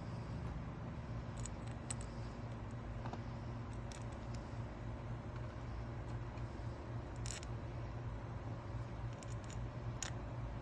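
Light clicks and taps of small metal carburetor parts being handled on a workbench, a few at a time, the sharpest about seven and ten seconds in, over a steady low hum.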